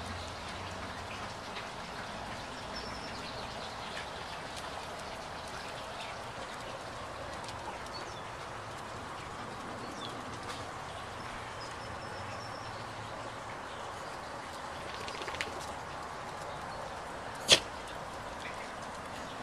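Steady rushing outdoor background noise with a few faint, high bird chirps, and one sharp click near the end.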